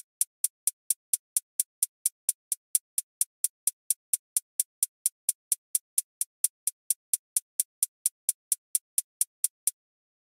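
A programmed hi-hat sample (the '[ADM] XXX Hope HiHat') played alone from a drum machine, a steady pattern of short, bright ticks at about four a second. It stops shortly before the end.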